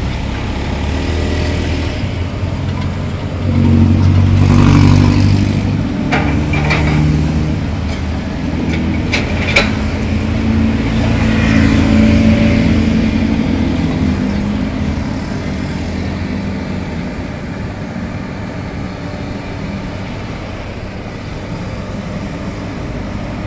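Passing road vehicles, motorcycles among them, whose engines rise and fade twice over the steady drone of a Komatsu tracked excavator's diesel engine. A few sharp knocks come in the middle.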